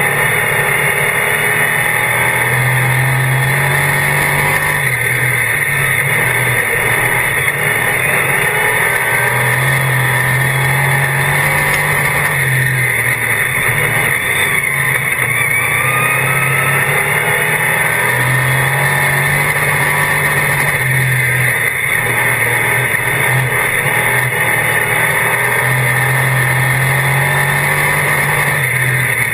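A DIRTcar Sportsman modified's V8 engine heard from inside the car at racing speed as it laps the dirt oval. The revs climb and drop back in a repeating cycle about every seven to eight seconds.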